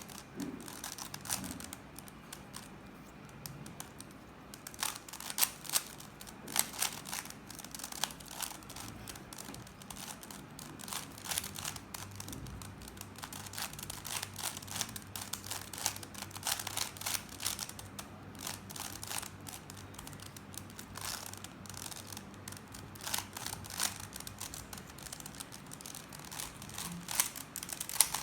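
Plastic 3x3 Rubik's cube being turned rapidly in a timed speed solve: irregular clicks and rattles of its layers snapping round, in quick flurries with brief pauses, thinning out about two to four seconds in.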